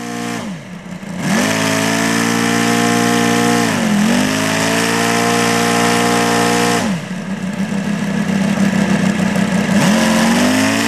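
ASP 400 radial engine of a large model Corsair running on the ground under throttle: it dips and then runs up to high revs about a second in, sags and picks up again around four seconds, falls back to a rough, lumpy low speed near seven seconds, and is run up once more near the end.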